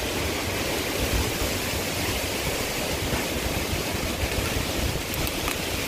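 Strong hurricane wind blowing as a steady rushing noise, with low buffeting from the wind hitting the microphone.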